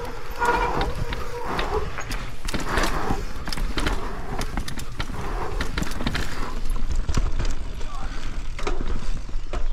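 Propain Spindrift enduro mountain bike riding down a rough forest trail: tyres rumbling over dirt and roots, with many sharp knocks and rattles from the bike and a steady low rumble of wind on the microphone.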